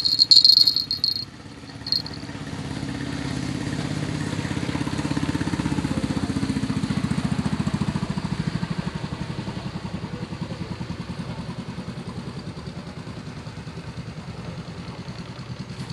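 Small motorboat's engine running steadily on the river, swelling louder and then slowly fading as it passes. A brief shrill, high-pitched sound near the start is the loudest thing, with a short repeat about two seconds in.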